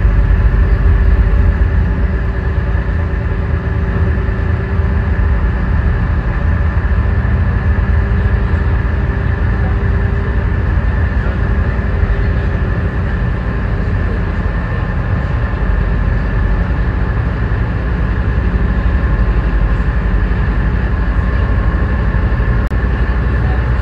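Passenger ferry's engine running with a steady low drone and a few constant tones, under an even rushing noise.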